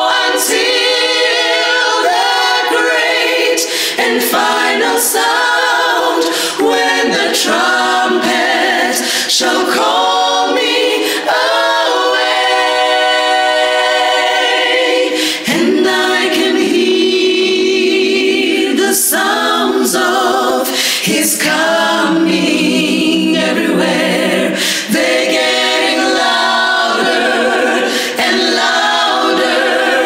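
Women's vocal ensemble of six singing a gospel song a cappella, the voices together with no instruments.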